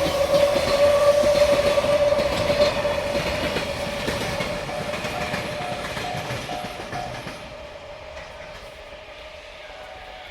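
Freight train of tank wagons passing on jointed rail, wheels clattering over the rail joints and fading as it moves away. A level-crossing alarm rings in a steady repeating pattern over it.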